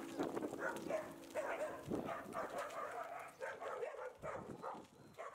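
Dog whimpering and yipping in short, rising and falling calls that grow fainter toward the end, while the last held notes of music die away in the first seconds.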